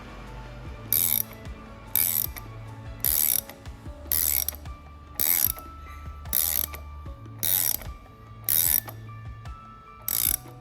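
Hand ratchet wrench being worked on a bolt: a short burst of ratchet clicks about once a second, nine strokes in all.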